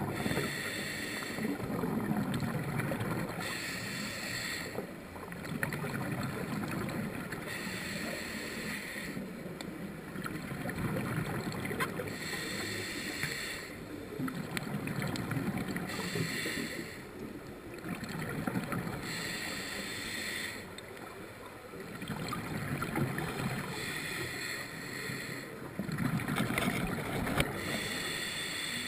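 Scuba diver breathing through a regulator underwater: a hiss on each inhale alternating with a low rumble of exhaled bubbles, about seven breaths at an even pace of roughly one every four seconds.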